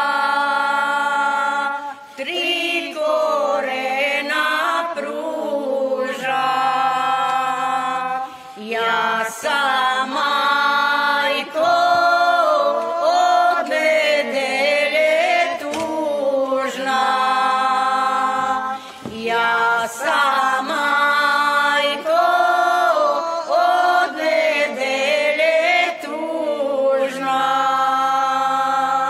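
A group of older women singing a traditional Serbian folk song a cappella, with no instruments, in long held notes. The phrases last a few seconds, with short breaks for breath between them.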